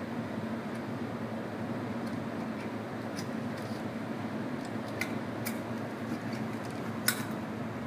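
Steady background hum with a few faint metallic clicks from an ISSC M22 .22 LR pistol being handled while a stoppage is cleared, the sharpest click about seven seconds in.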